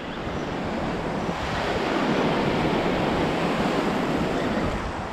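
Ocean surf washing in and breaking, a steady rush that swells in the middle and eases near the end, with wind on the microphone.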